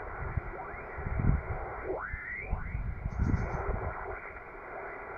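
Yaesu FT-450D shortwave transceiver's speaker giving out band noise, a steady hiss cut off above the receive filter, while whistles slide down in pitch twice about two seconds in as the dial is tuned past carriers. Low thumps come and go underneath.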